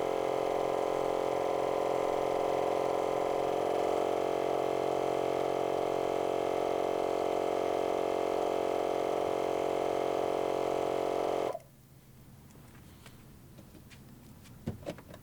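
Avid digital portable tyre-inflator air compressor running steadily with a droning hum while pumping a car tyre, then cutting off suddenly about eleven seconds in, typical of its automatic shut-off at the set pressure. A few faint clicks follow near the end.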